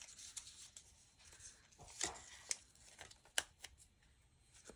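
Thin clear plastic strips of PET-tape stickers rustling and crinkling as they are picked up and handled, with a few sharp light clicks and ticks, the sharpest a little past the middle.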